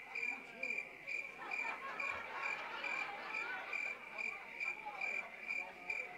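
Recorded cricket-chirping sound effect, a steady high chirp repeating about twice a second. It is the night-time backdrop to the spoken 'hot summer night' dialogue.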